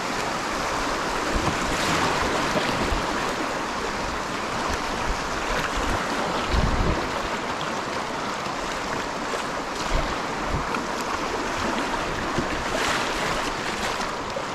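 Rushing water of small class I river rapids, splashing around the kayak's bow, with a couple of low thumps midway.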